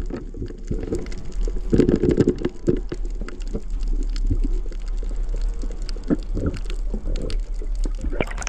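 Underwater bubbling and irregular knocks and clicks, with a louder bubbly burst about two seconds in, over a steady low hum.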